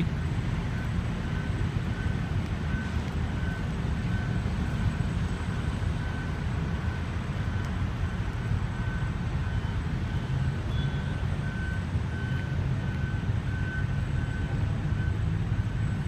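A vehicle's reversing alarm sounding a steady series of same-pitched beeps at an even pace, over a steady low vehicle rumble.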